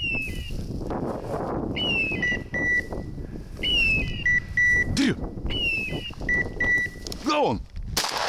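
A hunting dog's beeper collar sounding its repeating point signal: a falling chirp followed by a few short steady beeps, about every two seconds, over a low rustling of steps through marsh grass. A single shotgun shot goes off near the end.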